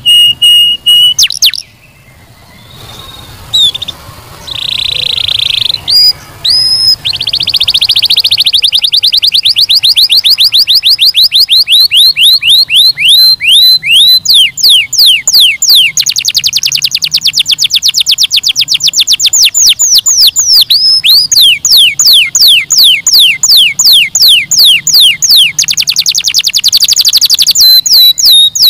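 Domestic canary singing: long rolls of fast repeated trilled notes, with a brief pause about two seconds in.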